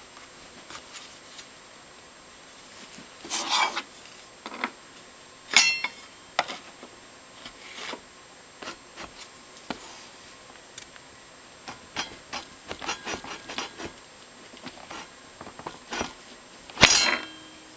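Scattered metal clicks, taps and clinks of hand tools working on a DeWalt 7491 table saw while its blade housing is adjusted, with a louder ringing clank about five and a half seconds in and another near the end.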